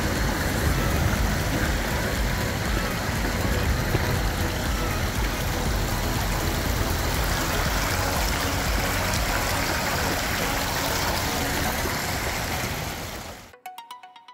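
Small stream cascading over rocks: a steady rush of water. It fades out about a second before the end as faint music notes begin.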